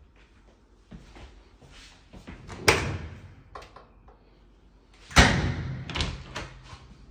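A top-loading washer's lid and a front-loading dryer's door being opened and shut: two loud slams about two and a half seconds apart, with lighter clicks and knocks around them.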